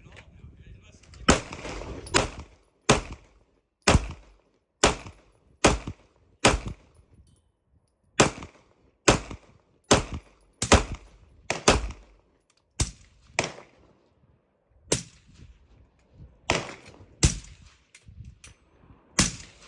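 Semi-automatic pistol firing a string of about twenty single shots, roughly one a second, with a couple of short pauses.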